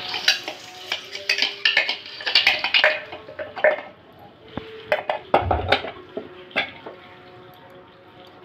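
Spatula stirring and scraping coarsely ground chana dal in a stainless steel kadhai, with quick clicks and scrapes against the pan. These are busiest in the first three seconds and again around five to seven seconds in. The dal is being roasted in ghee until its raw taste is gone.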